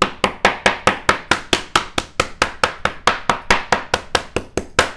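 Meat tenderizer mallet rapidly pounding a boneless pork chop on a plastic cutting board, about five to six quick, even strikes a second, flattening and tenderizing the meat into a thin cutlet.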